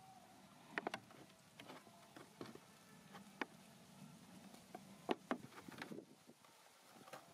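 Thin plastic water bottle crinkling and clicking in scattered sharp snaps as fingers push the cut flaps of its side inward.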